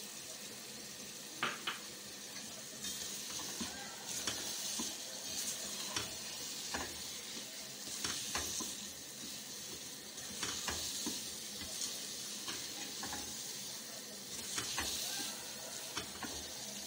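Grated carrots frying in ghee with sugar and khoya, sizzling as a spatula stirs and scrapes them around a pan in repeated strokes, with an occasional sharp tap of the spatula on the pan.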